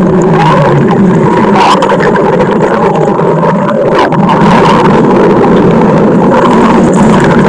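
Stomach growling sound effect: a loud, continuous low rumble with an irregular, churning texture and a couple of brief clicks.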